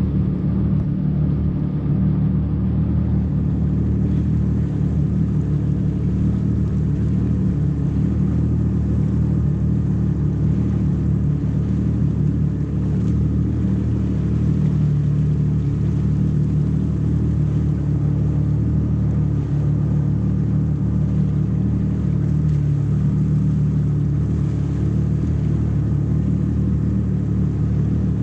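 Jet ski engine running steadily at an even speed, a continuous low drone with no breaks or changes in pitch.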